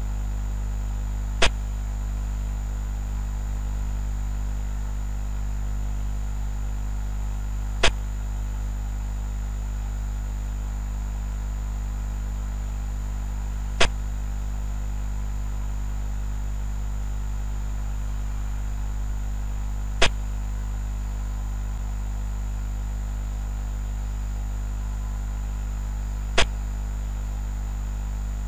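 Five sharp clacks about six seconds apart: a xiangqi game program's piece-move sound effect as pieces are placed on the board. Under them runs a steady low electrical hum.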